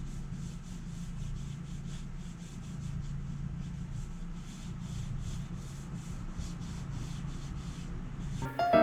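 Brush being worked back and forth against a wooden wall, about two or three strokes a second, in a steady rubbing rhythm.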